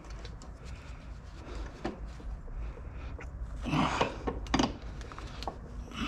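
Irregular metallic clicks, clinks and rubbing from a hand tool working a car's 17 mm seat-belt anchor bolt, with a few louder scrapes about four seconds in.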